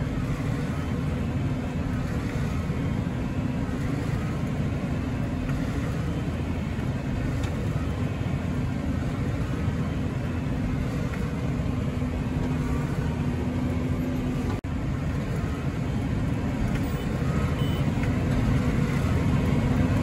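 A tractor engine running steadily under baling load, heard from inside the cab as a constant low drone. The sound drops out for an instant about fifteen seconds in.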